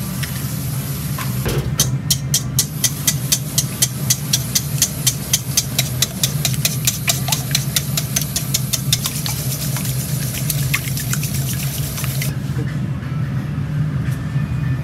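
Wire whisk beating raw eggs in a stainless steel bowl: fast, even clinking of the wires against the metal, about four or five strokes a second, starting about two seconds in and stopping near the end. A steady low hum runs underneath.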